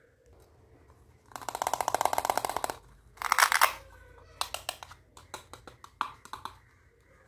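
Hook-and-loop (velcro) fastener of a plastic toy cutting-fruit orange tearing as its two halves are pulled apart, a crackling rip of about a second and a half, then a second shorter rip. This is followed by a string of light plastic clicks and taps as the halves are handled.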